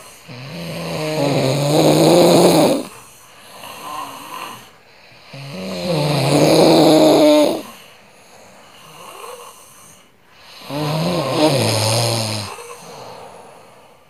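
A sleeping person snoring: three long snores, each about two seconds, coming about every five seconds.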